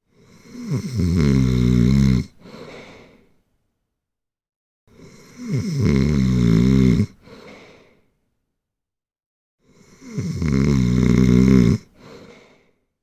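Loud, rhythmic snoring: three snores about five seconds apart. Each is a rattling in-breath about a second and a half long, followed by a shorter, softer breath out.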